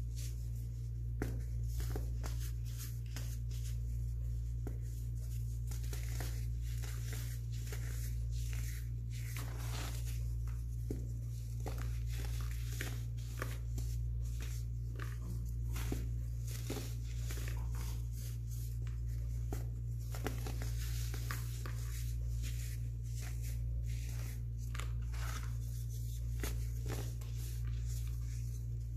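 Chunks of sky-blue baking soda crumbled and squeezed by hand, giving an irregular run of dry crunches and crackles as pieces break and powder falls away. A steady low hum runs underneath.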